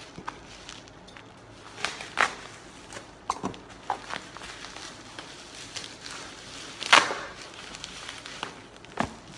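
Packaging being handled and opened: scattered clicks, taps and light scrapes, the loudest a sharp knock about seven seconds in.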